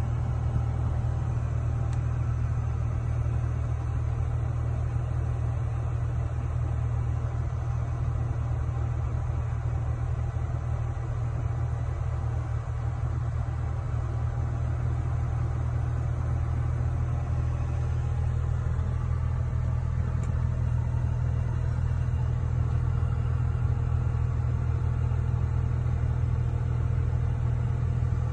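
Steady low drone inside the cabin of a 1991 car with its engine running and the air conditioning on.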